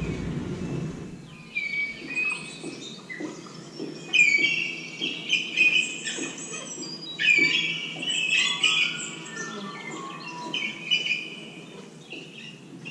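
Birds chirping and twittering: a run of short, high calls that starts about a second and a half in and goes on in clusters almost to the end.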